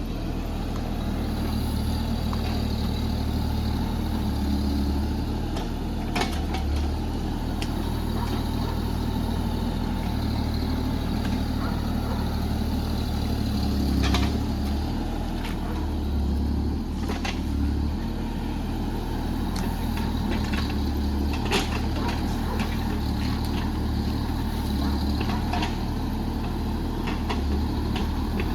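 JCB JS30 Plus mini excavator's diesel engine running steadily as the machine works, with scattered sharp knocks over it.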